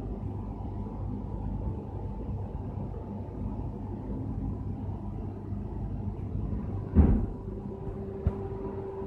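Steady machinery hum of factory equipment around a fiber laser cutting machine. About seven seconds in there is one loud thump, then a short click, and from the thump onward a further steady mid-pitched hum joins.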